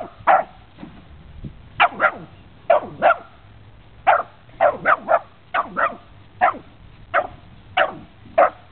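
A dog barking at a cat: a run of short, sharp barks, some in quick pairs, about one or two a second.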